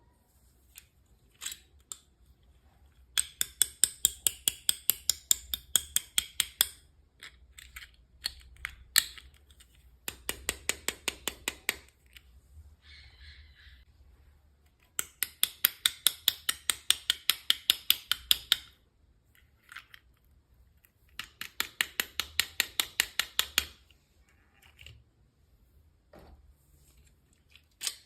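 Quick runs of sharp, evenly spaced clicks, about seven a second, coming in four runs of two to four seconds each, with scattered single clicks between them.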